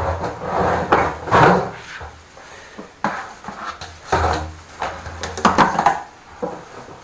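Drain-cleaning equipment and a wet-vacuum hose being handled, making irregular knocks, clatter and scraping, with a low hum under some of them.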